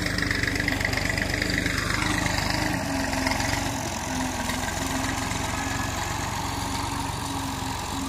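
Farm tractor's diesel engine running steadily while pulling a tine cultivator through the field.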